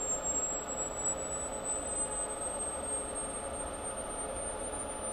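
A high-pitched sine test tone from the loudspeaker of a breadboarded transformer-coupled push-pull transistor amplifier. It glides slowly upward from about 7.5 kHz to about 9 kHz as a frequency-response sweep runs. Faint hiss sits underneath.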